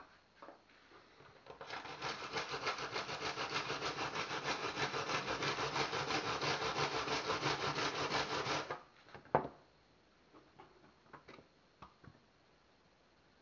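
Rapid back-and-forth scraping of a brake part being rubbed clean by hand, about four strokes a second. It starts a couple of seconds in, runs for about seven seconds and stops abruptly. A few light clicks and a knock follow.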